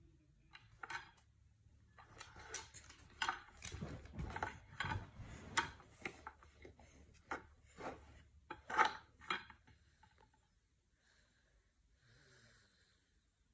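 Wooden baby toy pieces clacking and rattling as they are handled: a quick, irregular run of sharp knocks and clicks, the loudest about nine seconds in.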